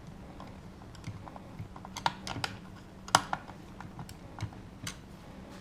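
Irregular sharp clicks and taps of hard lock parts being handled and fitted, the loudest about two and three seconds in.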